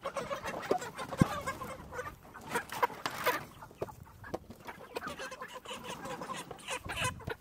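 Chickens clucking, with scattered knocks and scuffling throughout.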